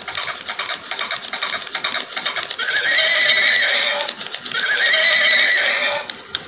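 Battery-powered toy pony switched on: its walking mechanism clatters rapidly as the legs move, and its speaker plays a recorded horse whinny twice, each rising in pitch and then holding for over a second.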